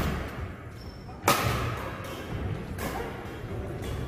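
Badminton rally: racket strings striking a shuttlecock, a sharp smack about a second in and a lighter hit near three seconds, each ringing briefly in the hall.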